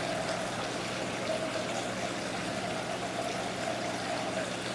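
Running water from the exhibit's water feature, a steady trickling flow, with a low steady hum under it.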